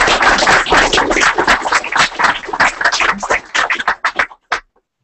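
Applause from a small audience, a dense patter of hand claps that thins to a few last claps about four seconds in and stops.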